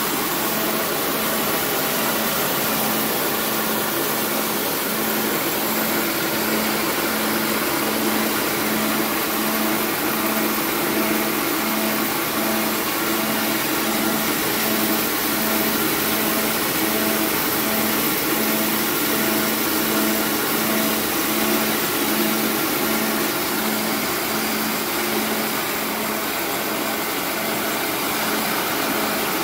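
Small electric rice milling machine running steadily as it hulls and polishes paddy into white rice: an even whirring machine noise with a hum that throbs at about one and a half pulses a second.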